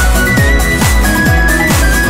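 Background music: an electronic dance track with a steady kick drum about twice a second under a held high synth line.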